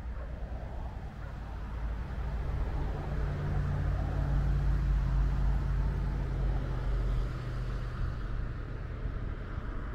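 A motor vehicle passing by: a low engine hum that swells to a peak mid-way and fades again over several seconds.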